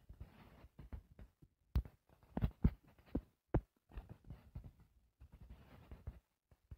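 Faint, irregular taps and soft rubbing on a tablet touchscreen while strokes are drawn, with a cluster of sharper taps in the middle.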